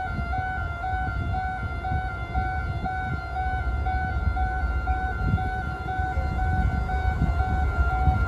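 A steady electronic warning tone stepping evenly back and forth between two close pitches, over the low rumble of the approaching KTMB Class 26 locomotive, which grows a little louder near the end.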